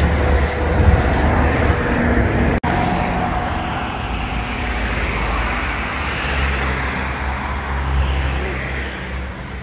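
Road traffic: a steady rumble of passing cars and trucks, broken by a brief cut-out about two and a half seconds in.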